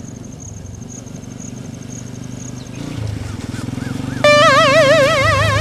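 TVS Apache motorcycle engine running at low speed, with faint insect chirping in the first half. About three-quarters of the way in, a loud warbling electronic tone starts suddenly and drowns it out, wavering in pitch about five times a second.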